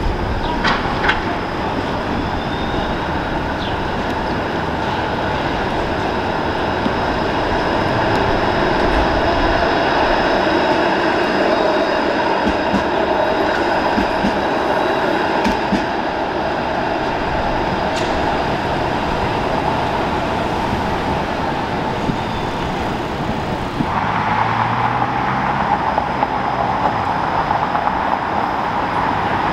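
Bombardier Flexity Outlook streetcars running past on street track: a steady rumble of wheels on rail with a held electric whine over it, among city traffic. The sound changes abruptly near the end.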